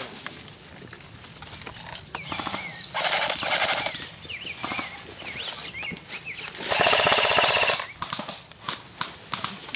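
Airsoft guns firing full-auto in two rapid bursts, a short one about three seconds in and a longer one of about a second near seven seconds, with a bird chirping between them.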